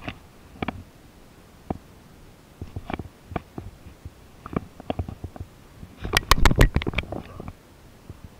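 Close handling noise from gear being handled near the microphone: irregular sharp clicks and knocks, with a burst of louder rapid clicking and rumbling about six seconds in.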